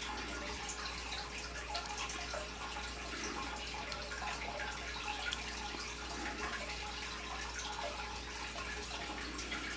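Steady trickling and dripping of running water, with small crackles throughout, over a constant low hum.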